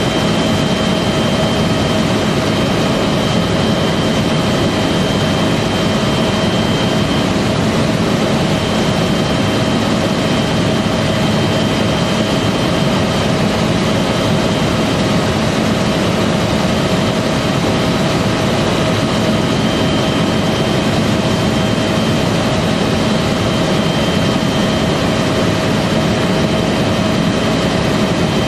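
UH-1 Huey helicopter in steady low-level flight, heard from inside the cockpit: the turbine engine and rotor make a loud, unchanging rushing noise with a few steady high whining tones on top.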